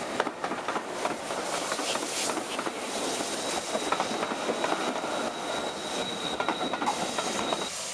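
Passenger coaches of a steam-hauled train rolling past close by, their wheels clacking over the rail joints. A thin, steady, high squeal from the wheels joins about three seconds in, and the sound cuts off suddenly near the end.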